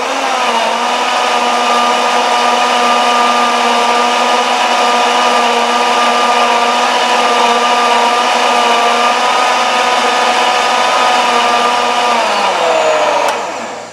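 High-speed countertop blender motor running flat out, puréeing a 2-litre jug of watermelon flesh into a smoothie: a loud, steady whine at one fixed pitch. Near the end the pitch drops and the sound dies away as the blender is switched off and winds down.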